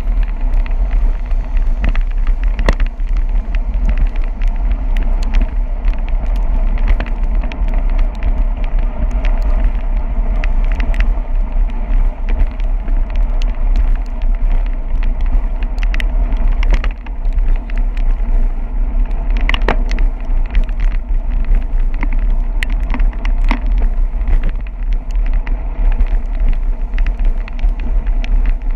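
Steady wind noise buffeting the microphone of a bicycle-mounted camera riding through rain, over the hiss of tyres on wet pavement, with scattered sharp ticks.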